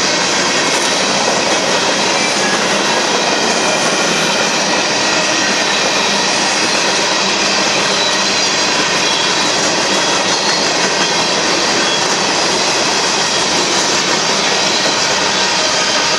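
Freight cars of a Union Pacific manifest train rolling past on the rails at a steady, loud level.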